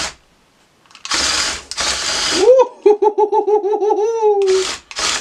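The small electric motors and gearboxes of a toy building-block RC tank whirring in short bursts as it is driven, starting and stopping. In the middle a warbling tone pulses about eight times a second for about two seconds, then slides down.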